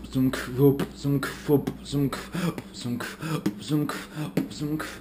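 Rhythmic vocal sounds in the manner of beatboxing: short pitched voice notes and clicks repeating to a steady beat.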